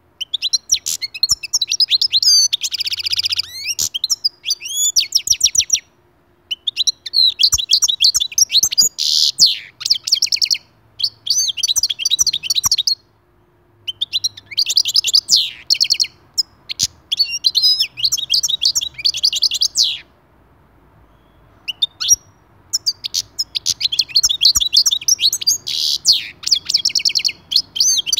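European goldfinch singing: phrases of rapid, high twittering notes mixed with buzzy trills, each lasting a few seconds and broken by short pauses, the longest about two-thirds of the way through.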